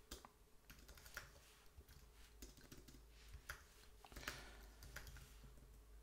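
Faint typing on a computer keyboard: a dozen or so scattered, irregular keystrokes.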